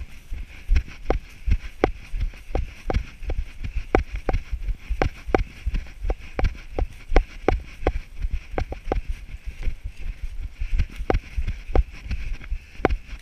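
A runner's footfalls on a dirt and grass trail, with the camera jolting at each stride: a sharp knock about three times a second in an even running rhythm, over a low rumble.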